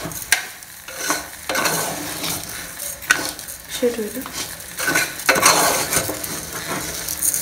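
A metal spoon stirs and scrapes raw rice around a metal pot, in strokes every half second to a second. Under the strokes is a sizzle as the rice fries in oil with the masala before water is added.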